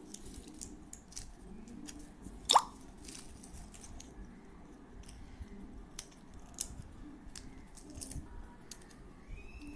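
Scissors snipping dry jackfruit seed skins into petal shapes: scattered small crisp snips, with one sharper, louder snap about two and a half seconds in.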